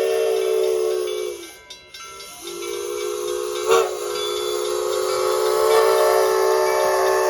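A locomotive's multi-chime air horn sounding a chord of several tones over hissing air. About a second and a half in, the chord sags in pitch and cuts out. It comes back rising in pitch as it builds, with a sharp crack just before four seconds in, then holds a long steady blast.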